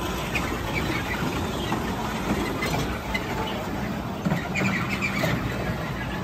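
Small kiddie ride train running along its track, a steady low rumble.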